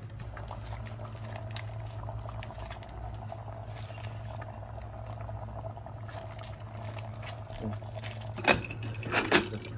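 Pork and fermented bamboo-shoot curry bubbling steadily in an open pressure cooker on the stove, over a low steady hum. Near the end come a few loud sharp knocks as the pot is handled while bok choy is pressed in.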